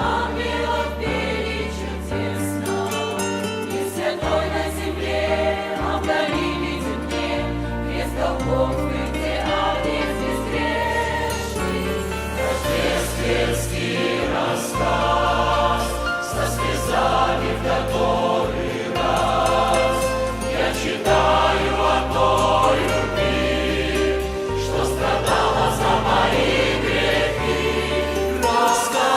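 Church choir singing a Christmas song with instrumental accompaniment, its bass line moving in steady held notes.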